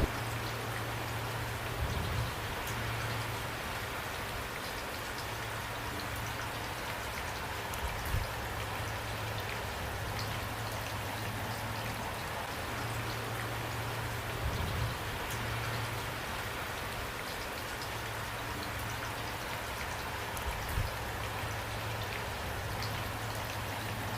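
Steady heavy rain falling, with a few brief low thumps scattered through it.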